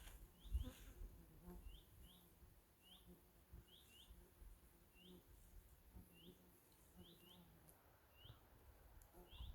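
Faint bird chirps: short high peeps repeating every half second to a second, often in quick pairs. A soft low bump comes about half a second in.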